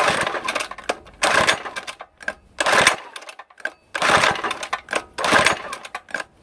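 Small minibike engine being pull-started by its recoil starter: five quick pulls about a second and a half apart, each a short rasping whirr of cord and turning engine. It turns over but does not catch, which the owner puts down to not enough fuel through the carburettor yet.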